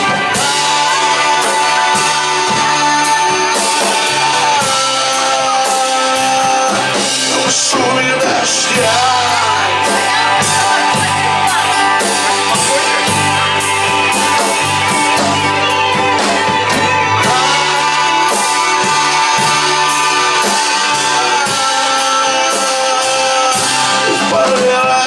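Rock music in an instrumental passage: guitar leads with sustained, bending notes over bass and a steady drum beat.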